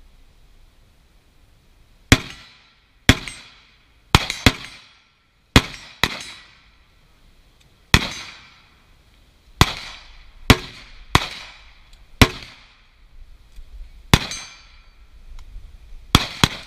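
Carbine gunshots, about fifteen single shots at an uneven pace, some fired in quick pairs and a fast string of three near the end, each shot ringing off afterwards.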